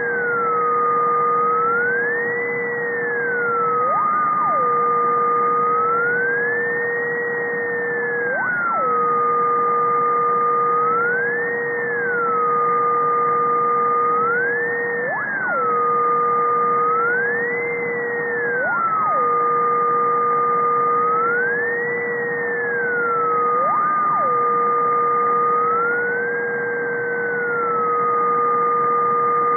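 Ultrasonic electronic noise from above 50 kHz, made audible, which may be a switched-mode power supply. It plays as two steady whistling tones: the higher one repeatedly glides up and back down every four or five seconds, siren-like, while the lower one holds steady with five brief sharp upward blips.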